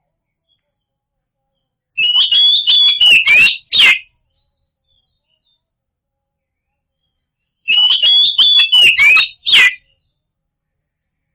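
Oriental magpie-robin song: two loud phrases of clear whistled notes, each about two seconds long and about six seconds apart, each ending in a quick falling note. It is a recorded lure song, played to prompt a silent magpie-robin to sing.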